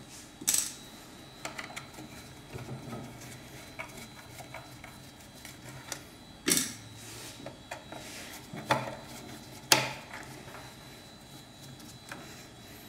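Small screws and a small Phillips screwdriver clicking and clinking against the hard plastic cover of a coffee grinder's doser as the cover screws are undone and set down. A handful of sharp clicks, spaced seconds apart, with fainter ticks between.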